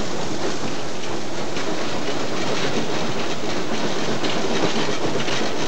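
BR Standard Class 9F steam locomotive moving slowly, heard from its footplate: a steady running clatter with faint clicks of the wheels over the rail joints.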